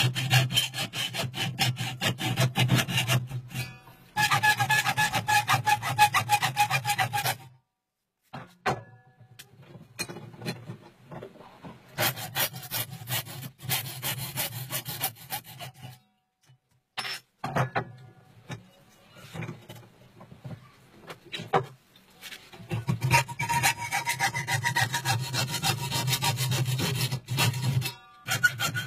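Hand file rasping across a metal block held in a bench vise, in several bursts of rapid back-and-forth strokes separated by short pauses, with a faint ringing note from the metal in some passes.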